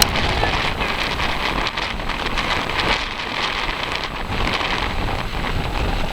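Ocean surf washing up the beach, a steady rushing noise, with wind buffeting the microphone.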